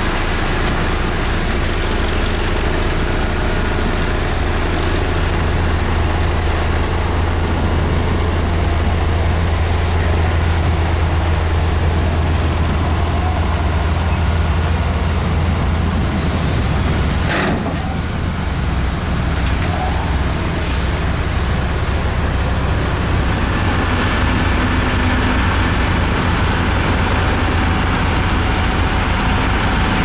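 LiuGong B160C bulldozer's diesel engine running steadily under load with a deep, constant rumble, and a single sharp metallic knock about seventeen seconds in.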